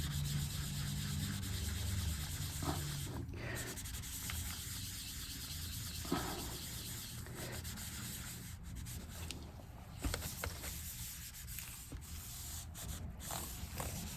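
Scrubbing a MacBook's case with a disinfecting wipe to lift sticker residue: a continuous scratchy rubbing.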